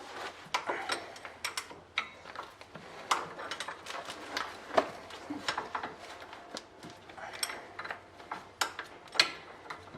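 Hand tools and metal parts clinking and knocking at irregular intervals while a Suzuki LJ-series front swivel hub is taken apart, with sharper knocks a little before the middle and near the end.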